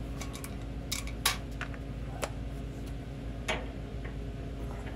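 Hand tools clinking as a cordless impact wrench with its socket is worked into place on a bushing press tool's bolt: a handful of sharp, separate metal clicks, the loudest about a second in, over a steady low hum.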